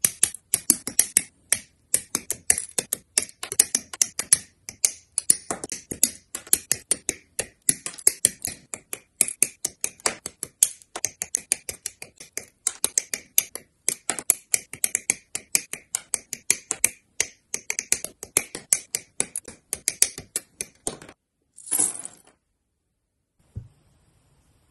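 Plastic model-kit parts being clipped off their runners with hobby nippers and snapped into place: a fast, busy run of sharp snips and clicks that stops about three seconds before the end, followed by a brief scratchy rustle.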